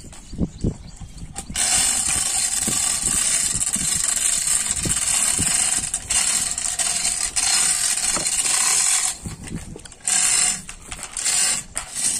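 Hand-operated chain hoist (chain block) hauling a boat hull up a bank. Its hand chain rattles steadily through the wheel, with clanks and clicks of chain and ratchet. The rattle starts suddenly about a second and a half in, stops about three-quarters of the way through, then comes back in short spells.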